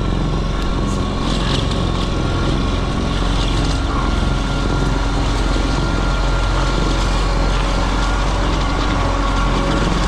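Concrete pump truck's diesel engine running steadily at a constant speed, with a thin steady whine over it.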